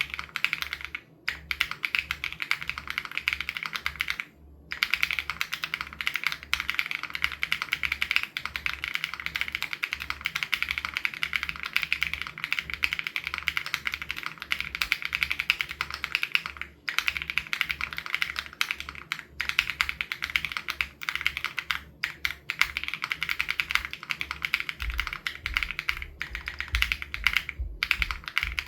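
Fast, continuous typing on an SPM AL87B custom mechanical keyboard with BSUN Raw switches: a dense run of keystroke clacks with only brief pauses.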